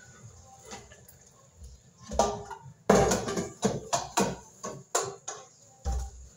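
An aluminium pan clanking against a metal pot and a blender jar while soaked corn and water are scooped and poured. It starts with a few soft knocks, then from about two seconds in comes a quick run of sharp clanks and clatters.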